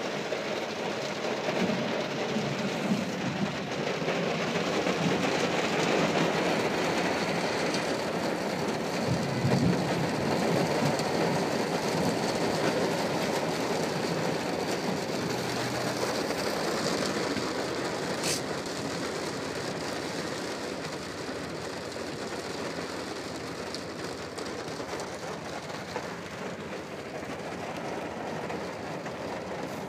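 Heavy rain hitting a car's roof and windows, heard from inside the cabin, with the low rumble of the car and traffic beneath. It is heaviest in the first half and eases toward the end, with one sharp click about two-thirds of the way through.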